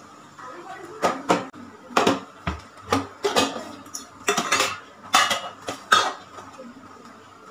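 Metal utensil clinking and knocking against a kadai while onions are stirred: about a dozen sharp strikes between about one and six seconds in.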